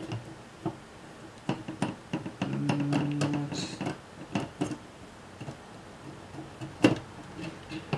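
Small metal clicks and taps of a driver and tiny parts on a JVC camcorder's metal tape-mechanism chassis plate, scattered through, with a sharper knock near the end. A low steady tone is held for about a second, two and a half seconds in.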